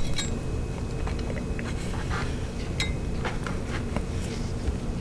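Knife trimming hard fat off a slab of beef short ribs, with a few scattered light clicks and clinks of the blade, over a steady low background rumble.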